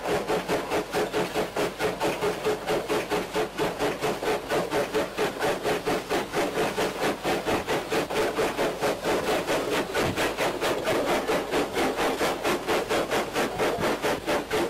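Steam locomotive Caledonia, a Manx Northern Railway 0-6-0 tank engine, working hard up a 1 in 12 gradient, its exhaust beating from the chimney at a steady pace of about five chuffs a second.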